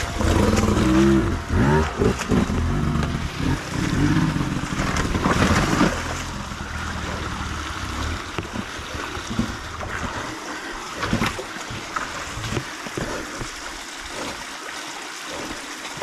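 GasGas enduro dirt bike engine running at low revs with throttle blips over the first few seconds, with occasional knocks of tyres on rock. The engine then falls quieter and water trickling over rocks comes through.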